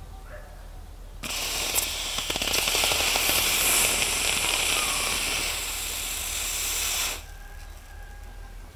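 Hot brass lure blank sizzling and crackling as a lump of ice is pressed onto it. The hiss starts suddenly about a second in and cuts off abruptly about seven seconds in.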